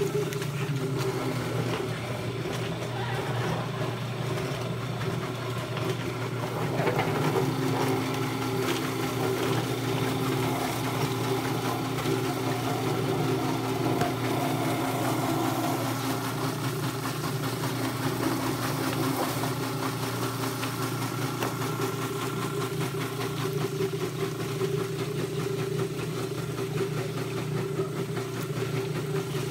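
Machinery running steadily with a constant mechanical hum.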